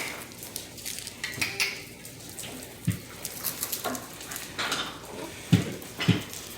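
Basset hound puppies playing: scattered light clicks and clinks, with a few short low grunting sounds about three and five to six seconds in.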